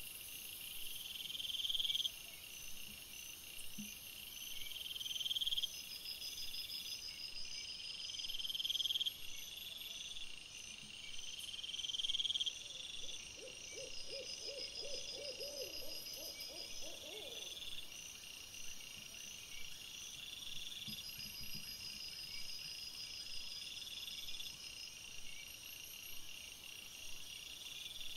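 Night insect chorus of crickets: steady high chirping with a louder call that swells and cuts off every one to two seconds, and a faster pulsed trill above it. Partway through, a lower run of rapid pulses lasts about four seconds.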